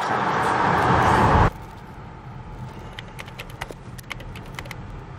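Loud car road and wind noise that cuts off abruptly about a second and a half in, giving way to a quieter steady car-interior hum with scattered light clicks and ticks.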